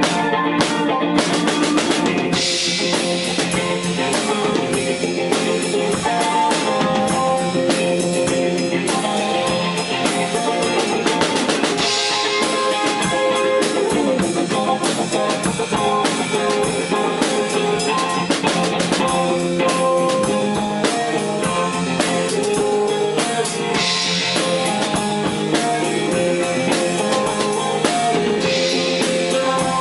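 Live instrumental band music with no singing: guitar over a drum kit keeping a steady beat, with cymbal crashes at several points.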